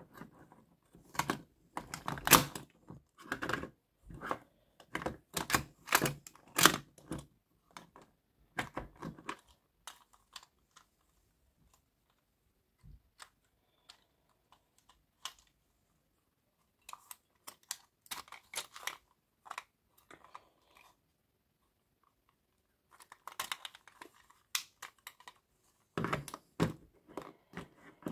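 Plastic joints and parts of an Optimus Primal Transformers action figure clicking, ratcheting and knocking as it is handled and transformed, in irregular bursts of sharp clicks with a quiet stretch in the middle.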